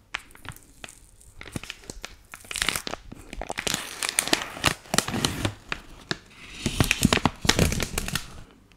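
Plastic film lid being peeled off a rigid plastic tray of sliced cheese, crinkling and tearing. The crackling starts about two seconds in and is loudest near the end.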